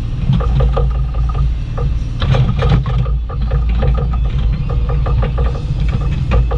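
Bobcat E35i compact excavator digging: its diesel engine runs steadily, with irregular clanks and rattles from the bucket and boom working through dirt and rock.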